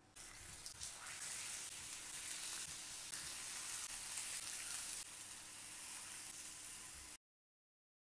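Hot caramel of melted sugar and butter sizzling in a skillet as apple quarters are set into it. The sizzle eases slightly after about five seconds and cuts off abruptly near the end.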